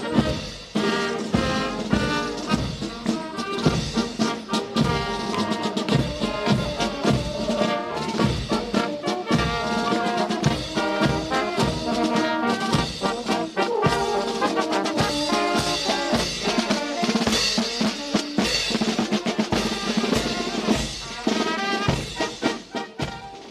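Background music with brass and drums playing at a steady beat.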